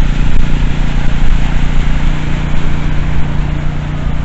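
A car engine running steadily, with a loud, even hiss over it.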